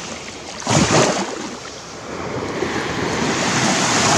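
Small surf washing onto a sandy beach, with wind on the microphone. A loud gust just under a second in, and the wash swells louder through the second half.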